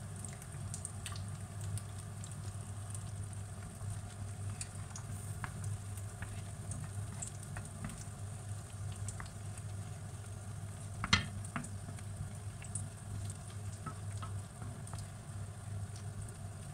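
Creamy mushroom sauce sizzling in a frying pan while a wooden spoon stirs it, with scattered small pops over a steady low hum. One sharper knock sounds about eleven seconds in.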